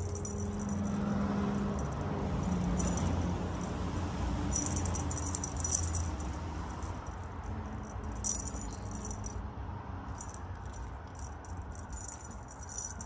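Cat toys rattling and jingling in short spells as kittens swat and wrestle with a wand toy, over a steady low rumble.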